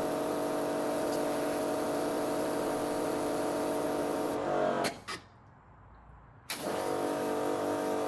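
Karcher K4 pressure washer running at full flow with the trigger gun open and no lance fitted: a steady motor and pump hum with water jetting into a bucket. The sound cuts out suddenly for about a second and a half past the middle, then starts again.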